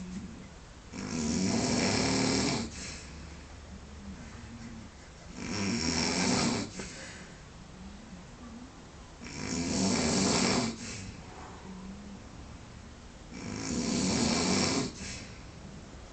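A man snoring in his sleep: four long snores about every four seconds, each lasting about a second and a half, with quieter breathing between them.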